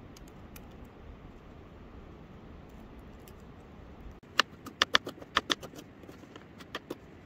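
Faint steady hiss for about four seconds, then a quick, irregular run of about a dozen sharp, light clicks and taps.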